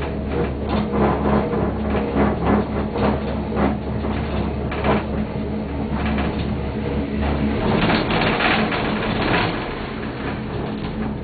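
Leitner six-seat gondola cabin riding the lift's machinery, a run of irregular clicks and knocks over a steady low hum. A louder rushing, scraping stretch comes about two-thirds of the way through.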